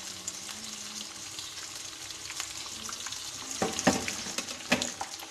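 Spice-coated fish pieces shallow-frying in hot oil in a kadhai, second side down: a steady sizzle with constant crackling spits, and a few louder pops about four seconds in.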